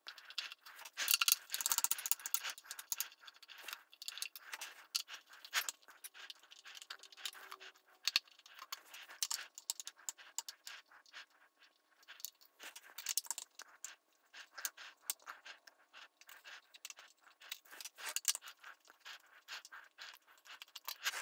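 Faint clicks, scrapes and small rattles as a Phillips screwdriver backs the small screws out of the corrector-plate retaining ring of a Celestron Schmidt-Cassegrain telescope and fingers pick the loose screws out.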